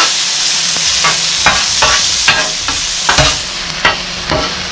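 Two metal spatulas scraping and clacking on a Blackstone flat-top griddle, about two strokes a second, as sautéing onions, peppers and mushrooms are tossed, over a steady sizzle of the frying vegetables.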